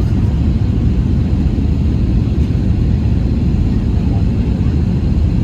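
Steady low rumble inside an airliner cabin: engine and airflow noise with no breaks or changes.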